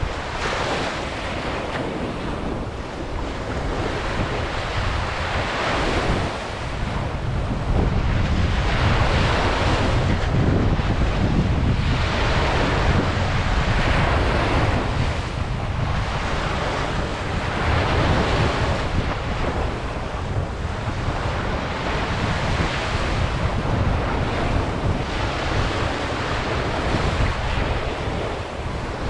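Ocean waves breaking and washing on a beach, swelling and easing every few seconds, with wind buffeting the microphone in a low rumble.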